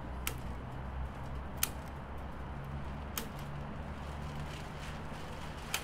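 Steady low city traffic rumble, with sharp clicks about every second and a half.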